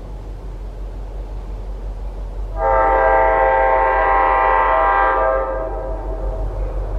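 Approaching locomotive's air horn blowing one long steady blast for the grade crossing, starting about two and a half seconds in and holding nearly three seconds before fading, over a low steady rumble.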